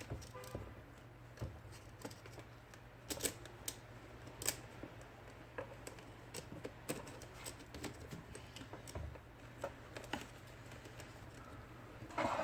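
Irregular light clicks and taps of an IBM Selectric II typewriter's mechanism being worked by hand during repair of its carrier return cable, over a faint steady hum.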